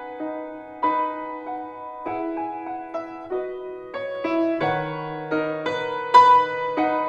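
Slow, gentle piano music: a melody of single struck notes over held chords, with deeper bass notes coming in about halfway through.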